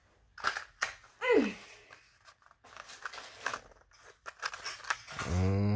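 Plastic lure packaging being handled, crinkling and clicking in short bursts. A brief falling vocal sound comes about a second in, and a low hummed voice near the end.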